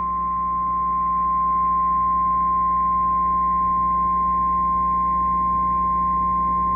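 A single steady, unbroken alert tone a little above 1 kHz. This is the 1050 Hz warning alarm tone used by NOAA Weather Radio in emergency alert broadcasts, and it plays over a low steady hum.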